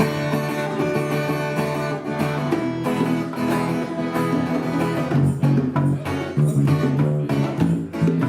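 Guitar strumming chords in the instrumental intro of a live song; the strumming grows busier about five seconds in.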